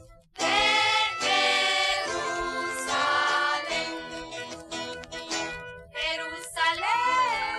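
Christian praise-band music with several voices singing together. It comes in after a brief gap about half a second in.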